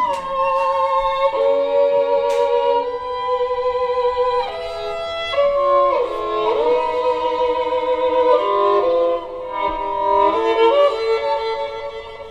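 Violin music played back through Børresen Z2 Cryo Edition loudspeakers driven by an Aavik I-880 integrated amplifier. Sustained notes with vibrato, with slides between some of them, fading near the end.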